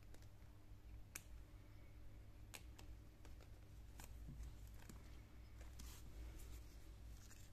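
Faint, scattered clicks and light rustling from hands handling a watch's resin strap and buckle, pulling off its plastic tag and protective film.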